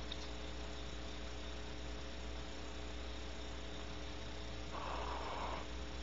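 Steady electrical hum, and about five seconds in a single short hiss just under a second long, a barn owl's snoring hiss call.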